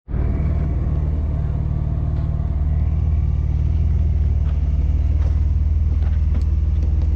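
Jeep Wrangler JK's engine running steadily at low revs, a deep even rumble, as it crawls up a rock ledge, with a few faint clicks in the second half.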